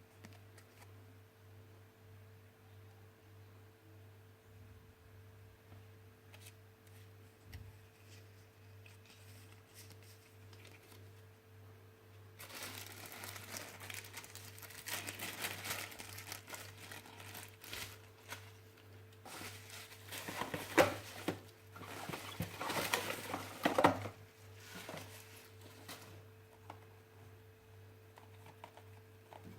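Packaging being handled and opened: crinkling and tearing in two spells of several seconds each, starting about twelve seconds in, the second spell louder with sharp crackles. Under it runs a steady faint hum.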